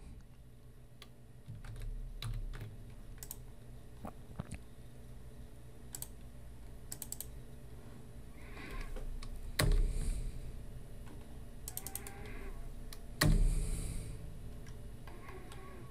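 Computer keyboard and mouse being used: scattered sharp clicks, with two louder key strikes, one near the middle and one later on.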